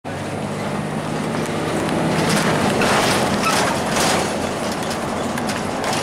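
Cabin noise of a 2002 Blue Bird CS transit bus under way: its Cummins ISC diesel engine running with steady road noise, and a cluster of clicks and rattles about halfway through.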